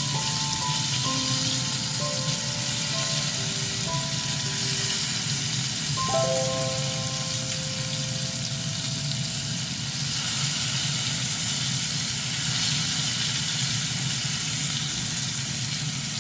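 Battered haddock strips sizzling steadily in hot oil in a cast-iron pan, with background music of held notes playing over it.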